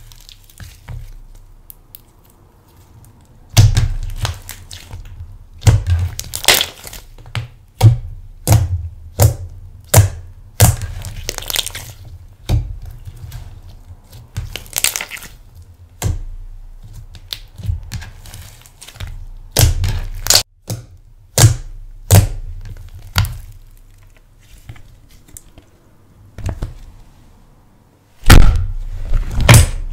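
Thick slime being squeezed, pressed and folded by hand, giving irregular clusters of sharp pops and crackles. There is a short lull near the start and another near the end.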